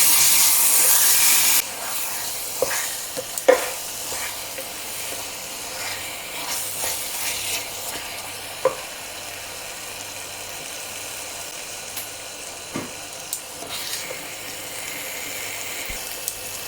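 Chicken curry sizzling in a pot while it is stirred, with a spoon knocking against the pot now and then. The sizzle is loudest for the first second and a half, then drops to a quieter steady hiss.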